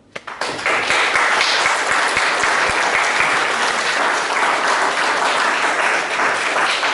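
An audience applauding. The clapping starts abruptly just after the beginning and stays dense and steady.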